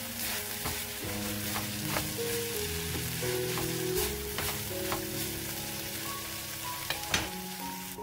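Kimchi, pork belly and green onions sizzling in a nonstick pan as they are stir-fried, with the utensil clicking and scraping against the pan; two sharper knocks come near the end.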